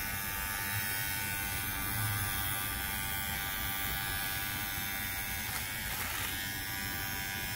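Kemei cordless electric beard trimmer running with a steady buzz, its comb-guarded blades trimming a beard.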